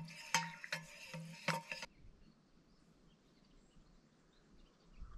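A spoon stirring instant coffee in a stainless steel camp mug: about five ringing metallic clinks over the first two seconds.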